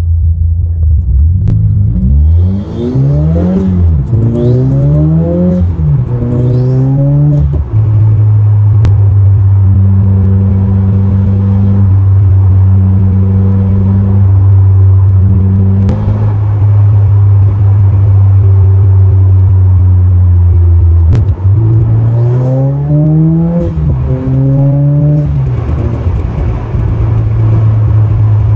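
A 2015 Subaru WRX's turbocharged 2.0-litre flat-four with aftermarket headers, J-pipe and cat-back exhaust, heard from inside the cabin. The engine pulls hard through several quick upshifts, its pitch climbing and dropping at each change, then settles to a steady cruising drone. Near the end it climbs through two more gears.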